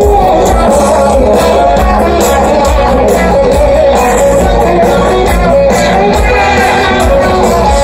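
A rock band playing live and loud, with drums, electric guitar and a male singer's wavering melody, heard from within the audience.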